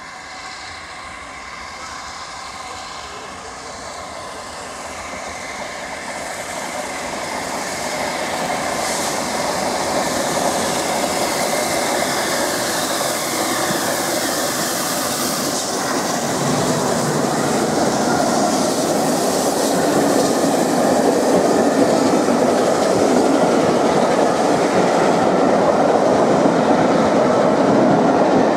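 LNER A3 Pacific steam locomotive Flying Scotsman and its train of coaches running through a station, the rolling and clatter of the wheels on the rails growing steadily louder as it approaches and the coaches go by. A high ring falls in pitch as the locomotive passes, about halfway through.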